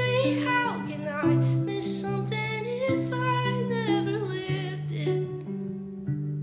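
Acoustic guitar played through a small acoustic amp, with a voice singing a wordless melody over it.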